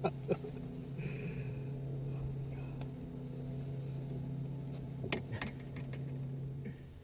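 Steady low hum of a bass boat's electric trolling motor, with a few sharp clicks and knocks from handling a caught bass and tackle on the deck: a pair at the start and a louder pair about five seconds in.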